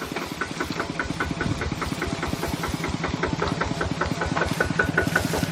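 A small engine running steadily, with an even rapid beat of about eight pulses a second.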